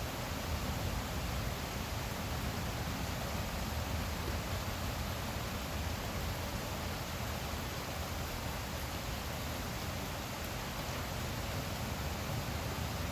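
Heavy rain falling steadily during a thunderstorm: an even hiss with a low rumble underneath.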